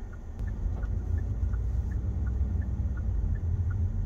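Car's turn-signal indicator ticking in an even tick-tock, about three clicks a second, over the low rumble of the car rolling through a left turn, heard inside the cabin.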